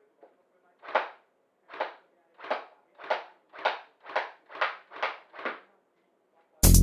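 Airsoft electric rifle firing single shots, nine in all, coming faster toward the end. Electronic music starts suddenly near the end.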